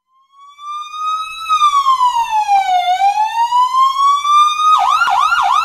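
Emergency vehicle siren, fading in and then sounding a slow wail that rises, falls and rises again, switching near the end to a fast yelp of about four sweeps a second.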